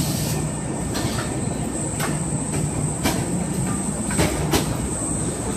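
Stationary coupled electric train humming steadily with a thin high whine. A handful of sharp clicks and knocks come roughly a second apart.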